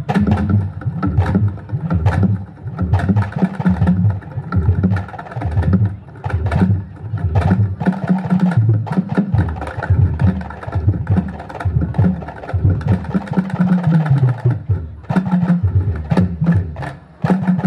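A Habsyi ensemble performing: frame drums (terbang/rebana) beating a fast, driving rhythm of deep strokes and sharp slaps, with group singing over it. The music cuts off abruptly at the end.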